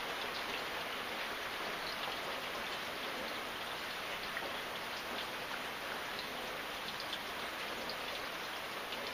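Steady rain falling, a continuous even hiss with scattered individual drops ticking against a surface.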